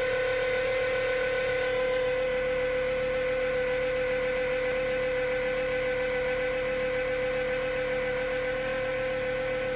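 2012 Fiat 500 engine running with a steady, high whine held at one pitch. The whine is not cured by a new belt, and the owner suspects the alternator, as the battery light has come on.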